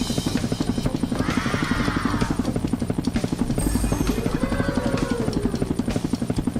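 Helicopter rotor sound effect: a fast, even chopping that runs steadily, with two swooping tones that rise and fall, the second lower than the first.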